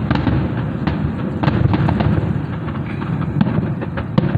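Aerial fireworks bursting in a dense, rapid barrage: many sharp cracks and booms overlap over a continuous rumble.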